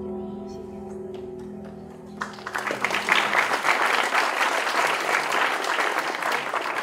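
Music with long sustained notes fading out, then audience applause that breaks out about two seconds in and keeps going.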